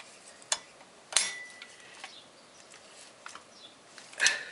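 A few sparse metallic clinks of hand tools, a socket wrench and extension, being handled. One louder clink about a second in rings briefly, and another comes near the end; between them it is quiet.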